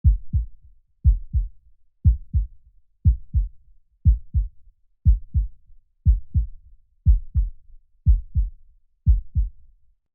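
Heartbeat sound effect: a steady, slow lub-dub, ten paired low thumps about one beat a second.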